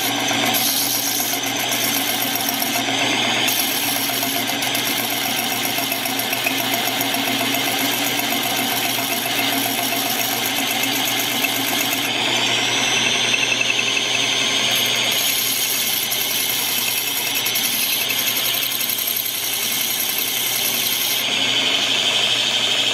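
Corded drill spinning a hand-crank piston ring filer's abrasive wheel while a piston ring's end is ground against it, opening the ring's end gap. It is a steady motor whine over a grinding hiss.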